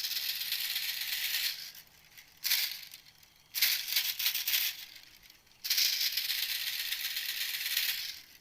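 Recorded animal call played back as a hunting lure: dry, buzzing rattle bursts, four in all with pauses between them, the first and last long and the middle two short.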